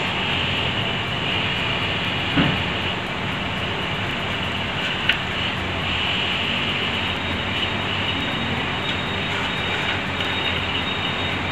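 A steady background drone with a low hum, in the manner of a running fan or motor, with two short knocks about two and five seconds in.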